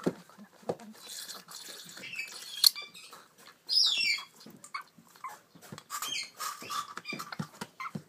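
African grey parrot chicks making short squawks and calls, with one louder falling squawk about four seconds in, among scattered taps and rustles from the paper bedding.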